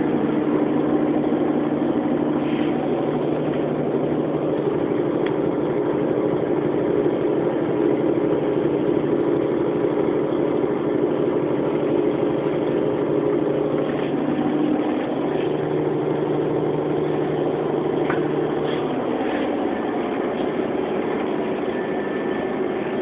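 Coach engine and road drone heard from inside the passenger cabin: a steady low hum whose pitch steps partway through and thins out toward the end.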